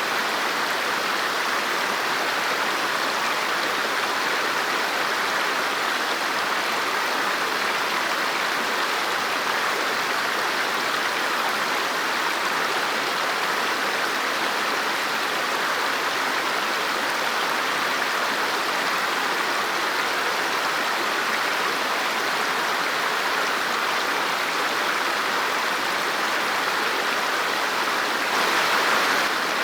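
River water flowing steadily over rocks, a continuous rushing babble with no break.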